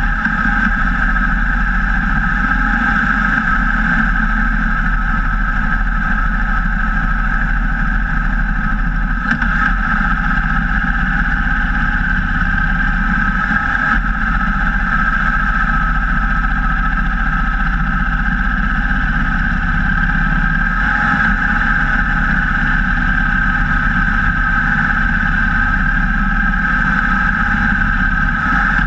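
Cruiser motorcycle riding at a steady speed: the engine running and wind and road noise, steady throughout with no revving or gear changes, picked up by a camera mounted low beside the front wheel.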